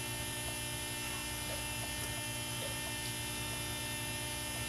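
Steady electrical mains hum with hiss, carried on the audio of an old videotape recording.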